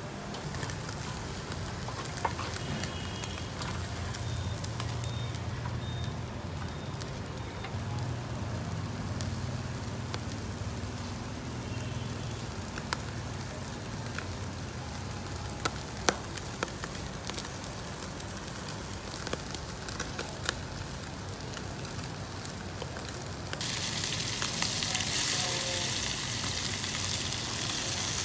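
Sturgeon pieces sizzling as they grill in a wire basket over a charcoal fire, with scattered sharp pops. Near the end it changes to a louder, hissier sizzle of pieces frying in a pan on the coals.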